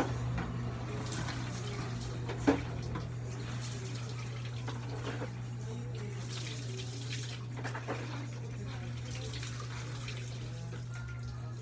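Water being scooped from buckets with a plastic dipper and poured, splashing, over a steady low hum, with a sharp knock about two and a half seconds in.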